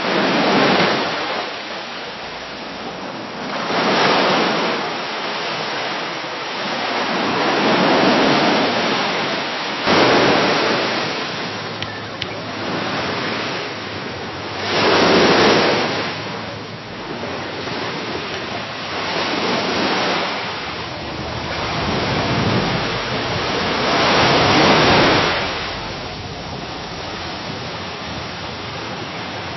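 Gentle waves washing against a dock, each wash swelling and ebbing about every four to five seconds.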